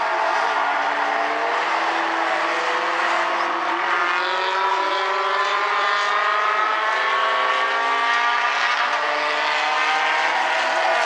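Several compact stock-car engines running together at racing speed. Their overlapping pitches rise and fall slowly as the cars lap.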